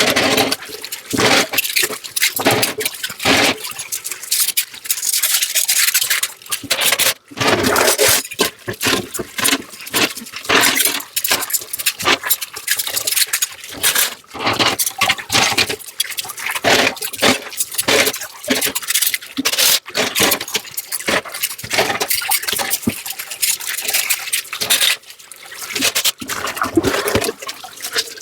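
Dishes being hand-washed in a kitchen sink: tap water running and splashing in choppy, irregular bursts as items are rinsed and moved under the stream.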